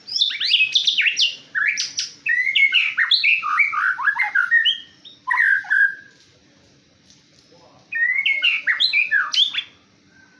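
Male white-rumped shama singing: a rapid, varied run of whistles and chirps for about six seconds, then after a short pause a second burst of song near the end.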